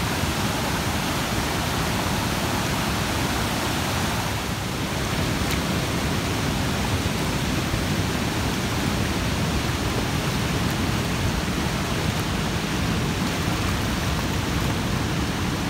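River water pouring over a low overflow dam and churning through the whitewater rapids below it: a steady, unbroken rush of water.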